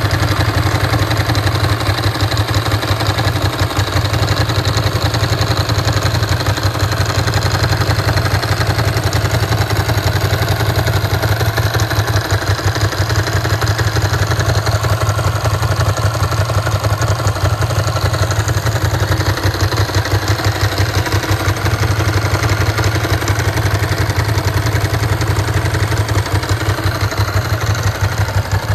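1998 Ducati ST2's 944 cc V-twin engine idling steadily.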